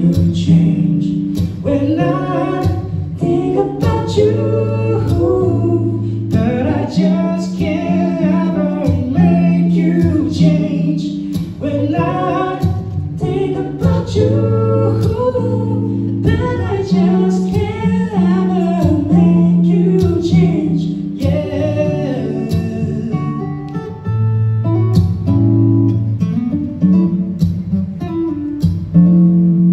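Live song: a male singer's voice over a strummed acoustic guitar.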